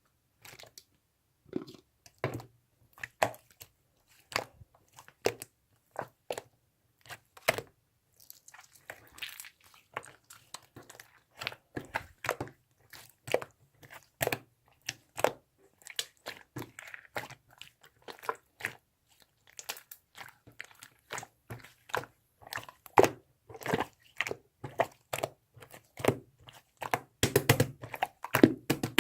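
Irregular crunching and crackling, many short sharp sounds a second in uneven bursts, growing denser near the end.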